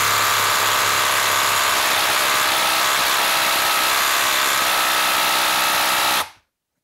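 Ryobi HP brushless impact driver hammering continuously on a socket, trying to back out a 5/8-inch by 8-inch bolt sunk in a wood round, then stopping suddenly about six seconds in. The bolt does not break loose: the driver cannot take it out.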